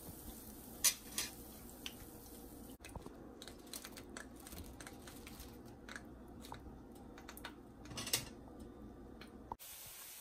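Crisp deep-fried, batter-coated cauliflower florets tumbling from a wire-mesh spider strainer onto paper towel: a scatter of light crunchy clicks and taps, with a sharper one about a second in and another near the end.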